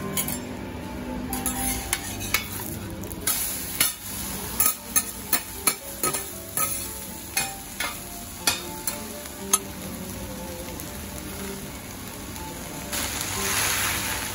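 Steel spatulas clinking and scraping on a hot teppan griddle as a Hiroshima-style okonomiyaki is lifted and flipped, a dozen or so sharp clinks over a steady sizzle. The sizzle grows louder near the end.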